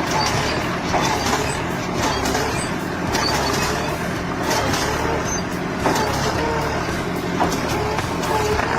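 A heavy machine's diesel engine running steadily under load, with scattered knocks and several short squeaky tones from the machinery working.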